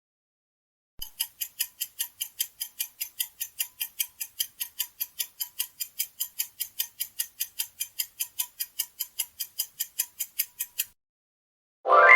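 Countdown-timer ticking sound effect, about four even clock ticks a second for some ten seconds. It stops, and a loud pitched chime comes in near the end.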